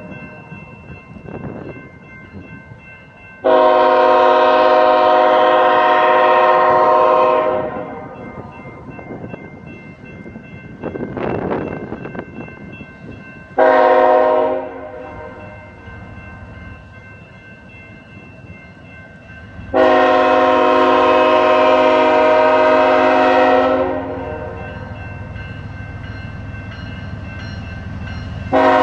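Freight locomotive's multi-chime air horn blowing for a grade crossing: a long blast about three seconds in, a short blast, then another long blast, with a fourth starting at the very end. A low train rumble runs underneath.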